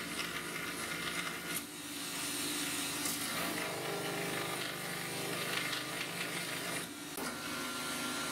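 Belt grinder running, with a knife handle and its brass-coloured fittings pressed against the moving abrasive belt and being ground to shape. The grinding eases briefly about seven seconds in as the piece is lifted off the belt.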